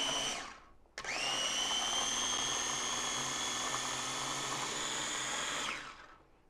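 Small push-top electric food chopper pureeing canned diced tomatoes. The motor winds down just after the start, is pressed on again about a second in with a rising whine, runs steadily for about four and a half seconds, then winds down near the end.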